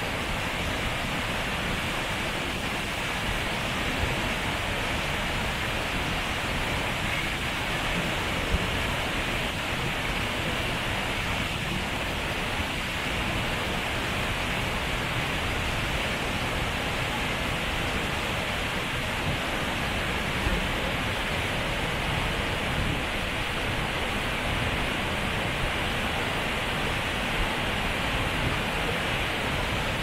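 Steady rushing of a large waterfall: falling water makes an even, unbroken hiss with a deep rumble underneath.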